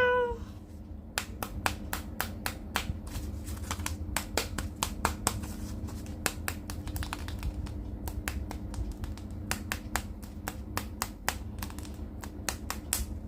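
Hands handling plastic toy packaging and action figures: a long run of small irregular clicks and crackles over a low steady hum.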